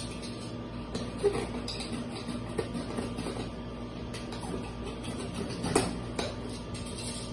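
A few light knocks and scrapes from hands handling things inside a cardboard box, the sharpest about a second in and again near the end, over a steady low hum.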